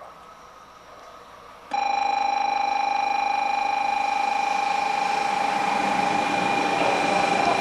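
Shinkansen station platform warning bell starting suddenly about two seconds in and ringing steadily as a loud, rapidly pulsing electronic tone, warning of an approaching train. Train noise begins to build faintly under it near the end.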